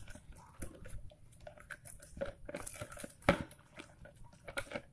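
Spinach leaves being crushed and kneaded by hand in water in a plastic dipper: irregular crunching and crinkling, with one sharper knock a little over three seconds in.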